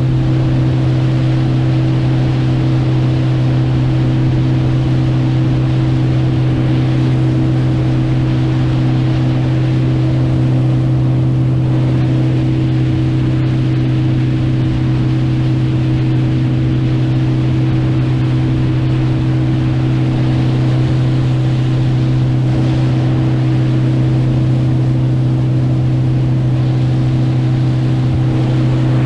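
Motorboat engine running steadily at constant speed, a loud, even drone, with the rush of water and wind.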